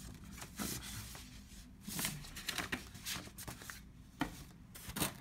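Paper record sleeves rustling and sliding as 78 rpm records are handled and pulled from a polystyrene foam packing box, in short, irregular scrapes.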